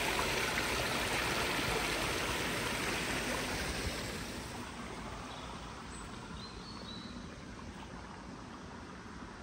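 Small forest stream splashing over stones and branches, a steady rushing that fades after about four seconds. A few faint high chirps in the middle.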